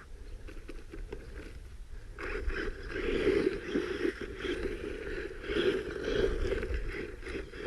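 Redcat Volcano EPX Pro RC truck driving in soft dirt: its brushless electric motor and drivetrain whir in uneven throttle bursts while the tires churn the soil. It gets louder about two seconds in.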